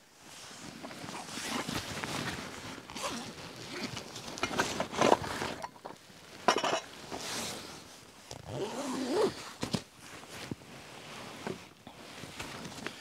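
Backpack being unzipped and rummaged through: zipper pulls, rustling of the pack's fabric and handled gear, in irregular bursts with a few louder scrapes and knocks, and a bottle set down on rock near the end.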